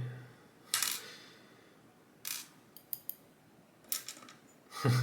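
Small metal lock pins and springs clinking as they drop out of a Mottura C30 dimple lock onto a pinning tray: a sharp clink about a second in with a short ring, another just past two seconds, a few light ticks, and one more near four seconds.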